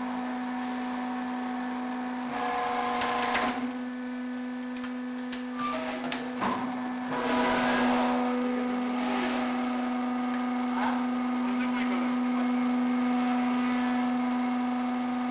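Hydraulic power unit of a vertical log splitter humming steadily. The sound grows harsher and louder twice, about two and a half seconds in and again about seven seconds in, as the ram drives the splitting wedge down through a block of stave wood and then raises it.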